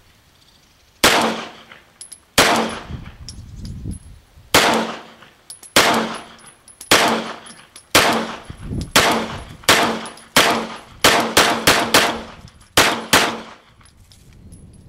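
About fifteen 9mm shots from a Brugger & Thomet TP-9 semi-automatic pistol, fired one at a time. They come one to two seconds apart at first, then speed up into quick groups of three or four near the end.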